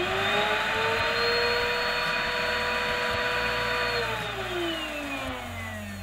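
LG Cyking canister vacuum cleaner's newly fitted replacement motor on its first test run, running at full speed with a steady high whine. About four seconds in the whine falls in pitch as the motor winds down.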